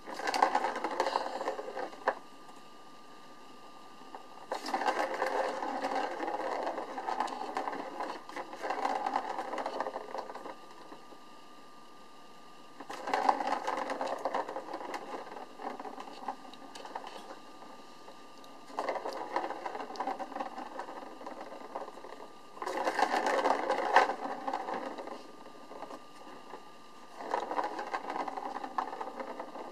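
A ball rolling around the plastic track of a circular cat scratcher toy as a kitten's paw bats it: six runs of rolling rattle, each a few seconds long, with short pauses between.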